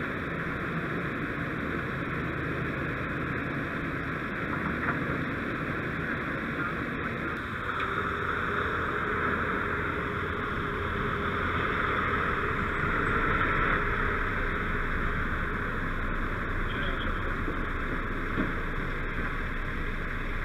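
Steady diesel engine noise from heavy trucks, swelling from about eight seconds in as a heavy wrecker tow truck drives up and pulls in close.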